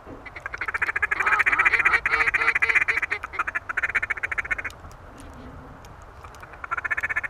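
Mallard duck calls blown hard and close in a fast feed-call chatter, calling to a flock of incoming mallards. A long run of rapid quacks and chatter stops about two-thirds of the way through, and a short burst starts again near the end.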